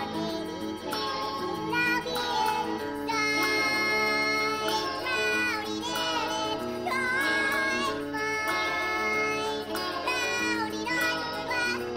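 Nightcore remix of a midwest emo indie rock song, sped up and pitched up, with high sung vocals over the band.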